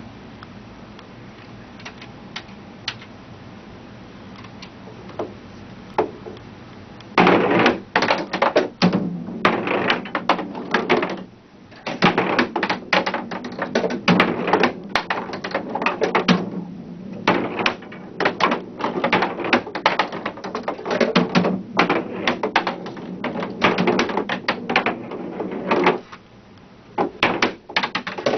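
Skee-ball balls rolled up the lane of an electronic skee-ball table, knocking into the scoring rings and clattering down into the ball return. A few scattered clicks, then from about seven seconds in a dense run of knocks and clicks with brief pauses.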